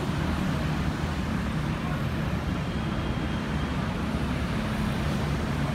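Steady road traffic noise with a low, even engine hum.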